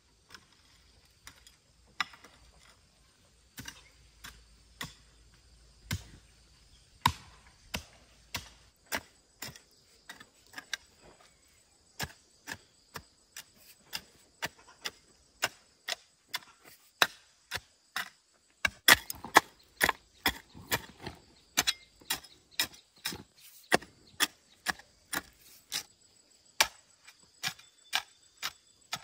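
Repeated chopping: a blade striking wood in sharp single blows, about one a second at first, then a steady beat of about two a second.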